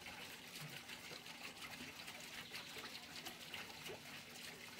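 Water pouring from a PVC pipe outlet into a fish tank, a faint, steady splashing trickle.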